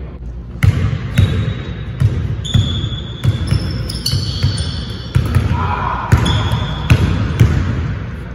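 A basketball dribbled hard on a hardwood court, bouncing about twice a second in an uneven rhythm, with short high sneaker squeaks on the floor between bounces.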